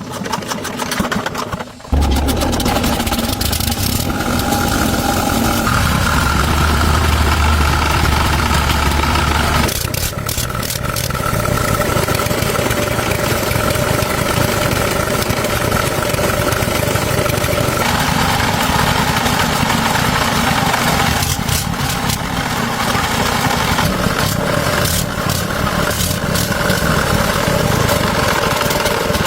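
Tractor engine starting about two seconds in and then running steadily, its sound changing a few times as it runs.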